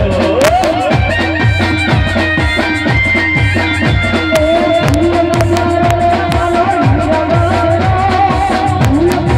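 Live band music played loud through a PA: a melody in long held notes over a steady drumbeat, in a folk style.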